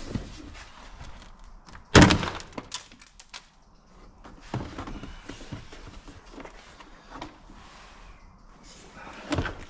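Plastic interior door trim on a Land Rover Discovery Sport being forced off the door, with a loud crack of clips letting go about two seconds in, then smaller snaps and knocks of plastic.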